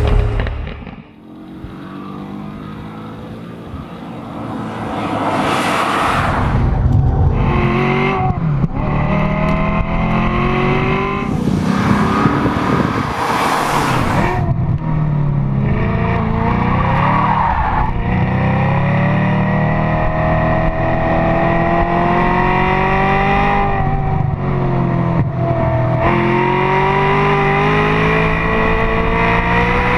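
Maserati 4200 GT's 4.2-litre V8 revving hard, its pitch climbing and dropping through the gears, with bursts of tyre squeal as the car slides. The engine is quieter for the first few seconds, then runs loud.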